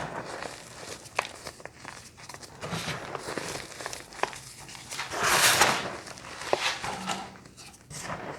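Close-up crunching and crinkling of crunchy snack bars: scattered sharp crackles, with one louder, longer crackling rustle about five seconds in.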